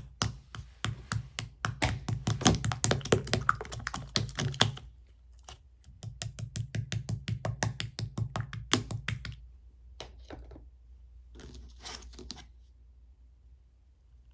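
Blue slime being squished by hand, giving quick runs of clicky pops and squelches in three bouts, the last one fainter.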